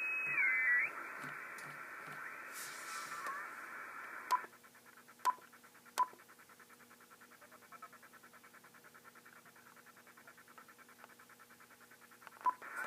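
Icom IC-7000 transceiver's receiver hiss with a whistle sliding in pitch at the start. A little over four seconds in, it drops to a quieter, fast pulsing noise as the radio scans the band, broken by short beeps, three close together and one near the end.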